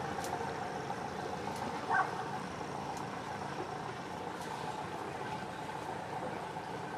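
Inboard engine of a river cruiser running steadily at low speed while the boat manoeuvres alongside a quay. A short, higher yelp cuts in about two seconds in.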